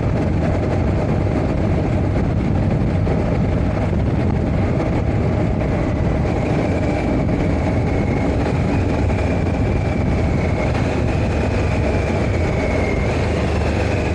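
Triumph Tiger 1200 Rally Explorer's three-cylinder engine running steadily while riding, under a continuous rush of riding noise.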